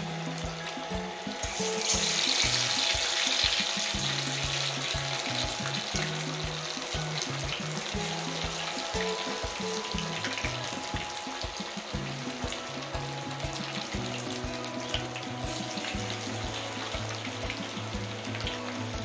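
Chicken kabab pieces deep-frying in hot oil: a steady crackling sizzle that swells louder for a couple of seconds near the start, then settles.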